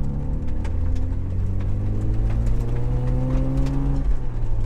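Toyota 80 Series LandCruiser engine pulling under load, its pitch rising slowly and then dropping back about four seconds in, with scattered clicks and knocks over it. Its exhaust has come off its rear bracket.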